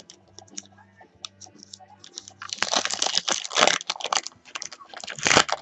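Trading card pack wrapper being torn open and crinkled by hand. Scattered crackles at first, growing into dense, louder crinkling about halfway through.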